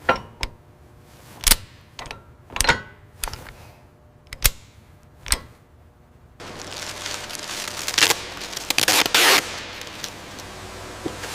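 A series of sharp, separate knocks or clanks, about eight in six seconds, then an abrupt switch to a steady noisy industrial background with a couple of louder hissing bursts.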